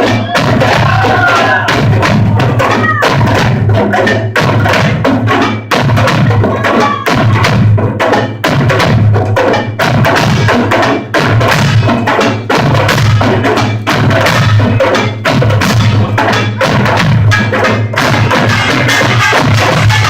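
Korean pungmul percussion ensemble playing a fast, dense rhythm of gong and drum strokes, loud and unbroken, recorded on a phone with poor sound quality.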